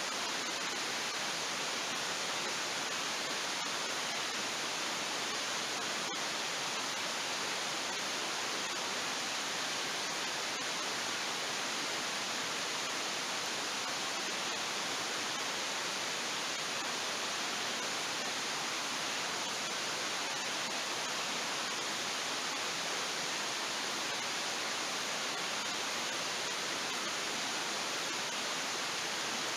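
Steady, even rushing noise, like water running or wind, unchanging throughout, with a faint tick or two.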